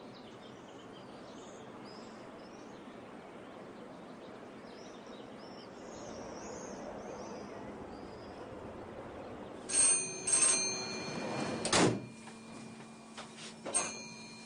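Outdoor background noise with birds chirping faintly. About ten seconds in, several loud ringing tones sound, a sharp bang follows, and a steady low hum then runs under one more ring, as inside a cable car cabin.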